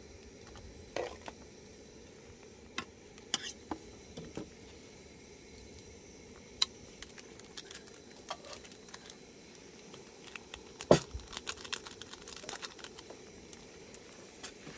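Scattered light clicks and knocks of small camp gear being handled, with one sharper knock about eleven seconds in followed by a quick run of clicks.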